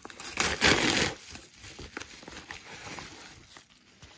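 Yellow Amazon padded mailer being torn open: a loud rip lasting under a second, starting about half a second in, then the paper crinkling and rustling as it is handled.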